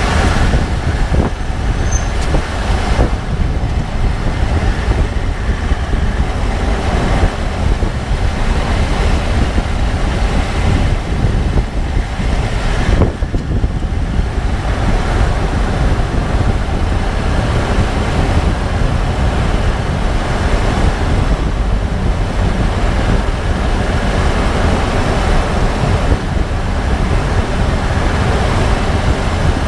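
2014 Range Rover Sport SDV8 (4.4-litre V8 diesel) driving at low speed, a steady low road-and-engine rumble with a few sharp clicks, about 1, 3 and 13 seconds in. The clicking at low speeds is an unexplained fault that the owner cannot place.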